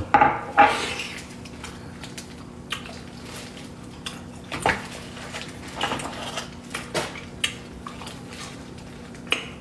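Dishes and cutlery clinking during a meal: scattered light clicks and knocks, a few seconds apart, over a low steady hum.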